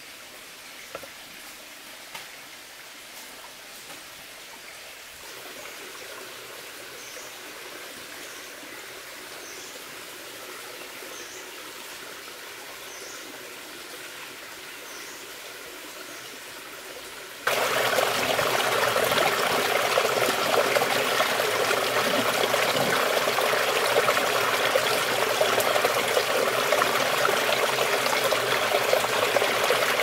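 Quiet forest ambience with a faint high call repeated about every second and a half. Then, a little past halfway, a rushing stream cuts in abruptly and runs loud and steady over rocks.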